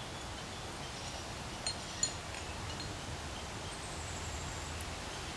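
Outdoor ambience: a steady hiss of air and rustling leaves. Two short sharp clicks come close together about two seconds in.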